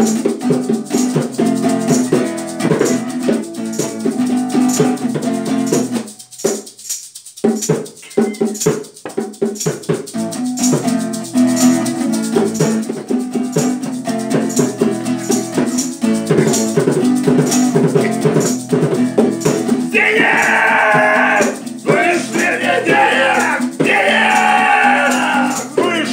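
Acoustic guitar strummed in a steady rhythm, with a shaker rattling along. The playing breaks off briefly about six seconds in. From about twenty seconds, a man sings loudly in three long bursts over the guitar.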